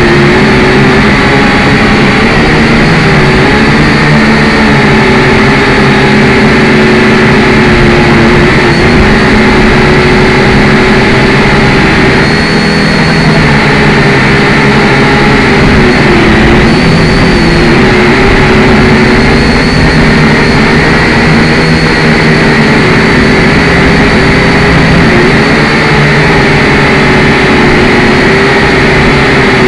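Syma X5C toy quadcopter's small coreless brushed motors and propellers running with a loud, steady whine, its pitch wavering slightly every few seconds as the throttle adjusts.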